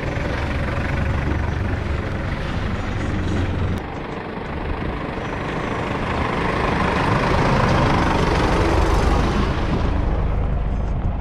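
Vehicle driving along the road: steady road and wind noise over a low rumble, dipping briefly before the middle, then swelling louder for a few seconds and easing near the end.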